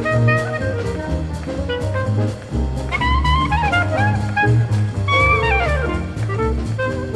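Swing-era big-band jazz with saxophones, trumpets and a drum kit keeping a steady beat, the horns playing falling runs about three and five seconds in.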